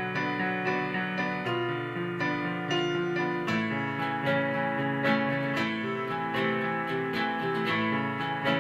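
Acoustic guitar and a keyboard with a piano sound playing an instrumental passage together, individual notes picked and struck in a steady flow.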